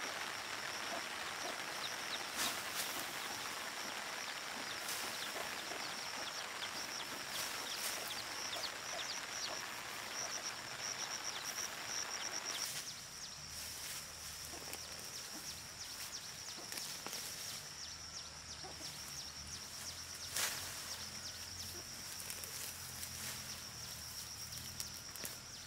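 Peanut plants being pulled up by hand: leaves rustling, with a few sharp snaps as the roots come out of the soil, over a steady high-pitched buzz. About halfway through the hiss drops away and a low hum comes in.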